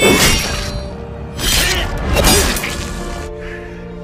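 Background music with sharp clashing impacts from a fight scene mixed in, once at the start and again about a second and a half in, then the music carries on alone.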